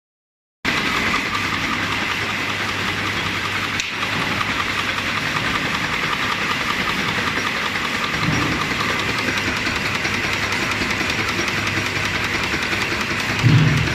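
SC6 hog ring (C-ring) making machine running, a steady, fast mechanical clatter as it feeds wire and forms rings, starting suddenly under a second in. A low thud comes about eight seconds in and a louder one near the end.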